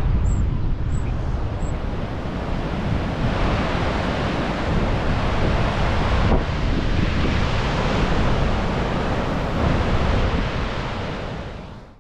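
Wind buffeting the microphone over the rush of surf breaking on rocks, which grows fuller about three seconds in and fades out near the end.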